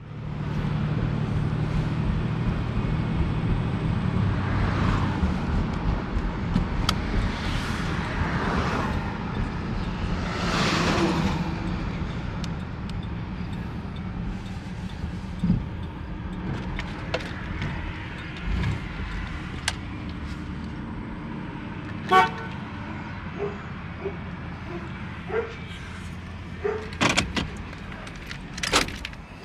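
A motor vehicle's engine running, with three rushes of noise that swell and fade within the first dozen seconds, like traffic going by. Scattered clicks and knocks follow, more of them near the end.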